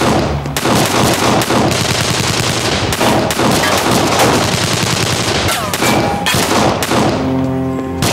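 Gunfire from several handguns in a shootout: many shots in quick succession, often overlapping, throughout. Music comes back in near the end.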